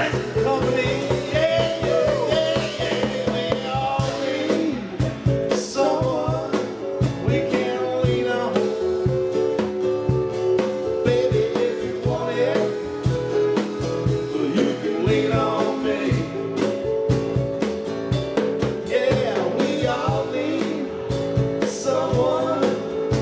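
A three-piece band playing a song live: electric bass and guitar over a steady drum beat.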